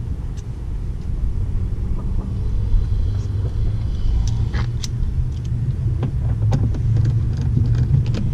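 A steady low rumble, with scattered sharp clicks and taps of a Phillips screwdriver and plastic door trim during the second half.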